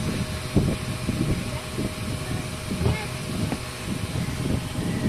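Wind buffeting the microphone: a low, uneven rumble that swells and drops in gusts, with a few light knocks.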